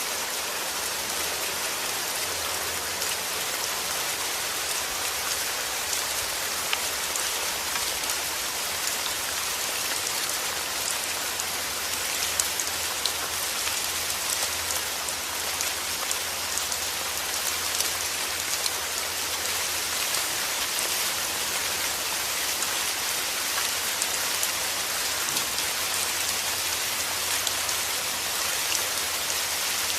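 Steady rain falling: a dense, even hiss with many individual drops ticking through it.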